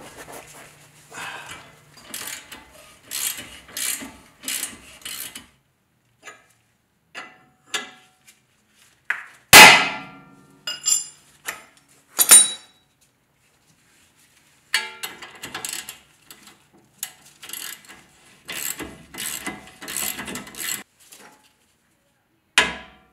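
Ratchet wrench clicking in short strokes as the 3/4-inch castellated nut is spun off a Jeep's tie rod end stud. About ten seconds in come sharp metal hammer strikes that ring briefly, the first the loudest, followed by more clicking and tool clatter and another sharp hit near the end.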